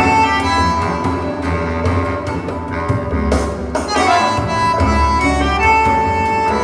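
Recorded music played back over a hi-fi loudspeaker system: sustained melodic notes over a continuous bass line.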